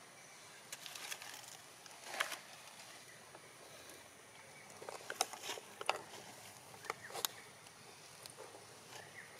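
Dry leaves crackling and rustling in a few short scattered bursts, the clearest about two seconds in and again between five and seven seconds in, over a faint outdoor background.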